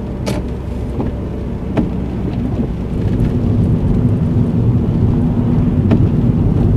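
Car engine and tyre noise on a wet road heard inside the cabin, with a few light ticks. It grows louder from about halfway through as the car pulls away from the roundabout exit.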